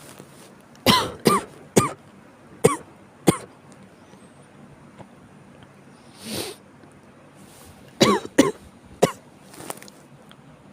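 A person coughing in two fits: five sharp coughs in the first few seconds, then after a pause four more near the end. It is the cough of someone ill with chills.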